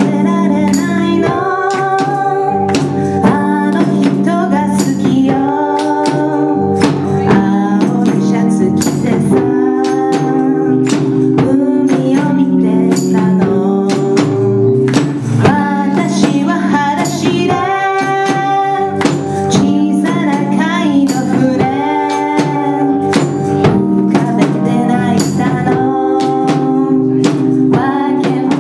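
Live band playing a song: a woman sings over keyboard and drum kit, with a steady beat.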